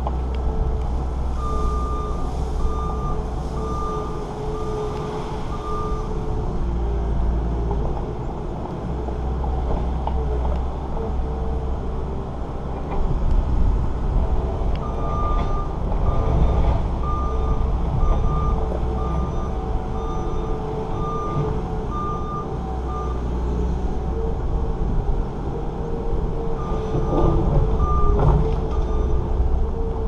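New Holland L230 skid steer's diesel engine running under load while working stone, its backup alarm beeping at about two beeps a second in three spells as it reverses: near the start, through the middle and near the end.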